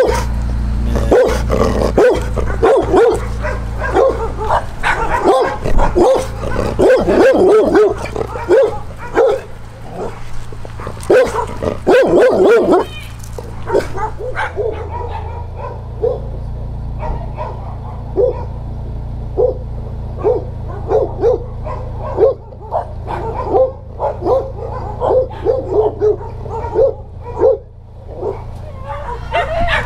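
A dog barking and yipping over and over in short calls, louder and mixed with some knocks in the first half, quieter after about thirteen seconds.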